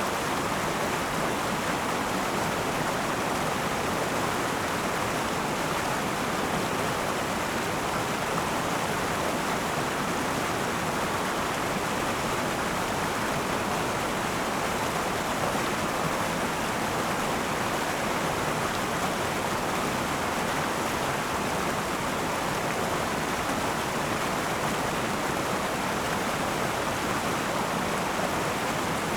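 Akan River flowing: a steady, even rush of running water over rocks.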